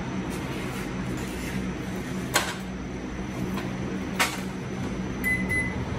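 Slotted spatula knocking twice against a frying pan as raw beef is scraped in and stirred, over a steady low hum. A short high beep sounds near the end.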